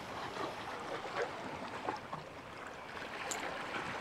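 Calm sea water washing gently against a rocky shore, with a small click about three seconds in.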